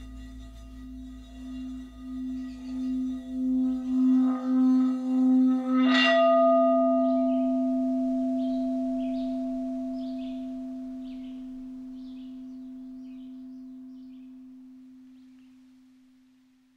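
A singing bowl ringing with a pulsing hum that swells louder, then struck once about six seconds in, its ring fading slowly away near the end as the song closes.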